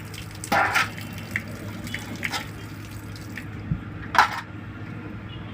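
Water splashing in short separate bursts, the loudest a little after four seconds in, over a faint steady hum.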